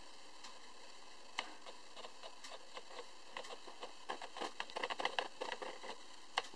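Irregular small clicks and ticks over a faint steady hiss. They come thicker and faster about four to six seconds in, with one sharper click near the end.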